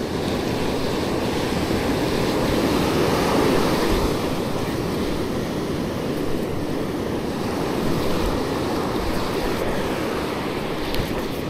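Surf breaking and washing up a sandy beach, with wind buffeting the microphone; the wash swells louder a few seconds in.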